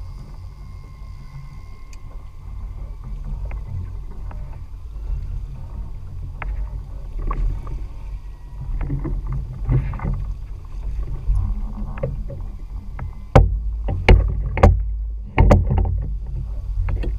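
Steady low rumble of a small outboard-powered fishing boat at sea. Scattered knocks build to several loud, sharp knocks and thumps of gear on the boat in the last few seconds.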